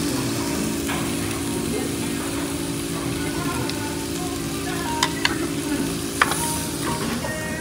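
Meat sizzling on a Korean barbecue tabletop grill: a steady frying hiss, with a few sharp clinks of utensils about five and six seconds in.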